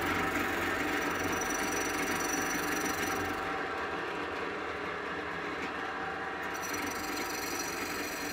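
Drill press spinning a wire wheel brush against the side of a cast-iron Stanley Bailey plane body, scrubbing rust, paint and pitting off the metal: a steady motor hum under a scratchy hiss. Around the middle the hiss drops away for about three seconds while the plane is lifted off the wheel, and it comes back as the plane is pressed on again.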